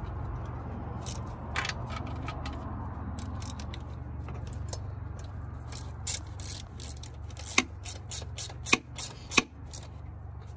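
Hand ratchet clicking and metal tools clinking as bolts are tightened down, the clicks growing denser in the second half with a few sharp ones near the end; a steady low hum underneath.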